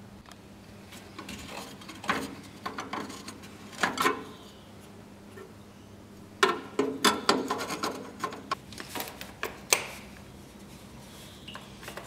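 Irregular clinks, knocks and rattles of hands handling metal parts and caps on a grey Ferguson tractor during servicing, in one cluster about two to four seconds in and a denser one from about six to ten seconds in.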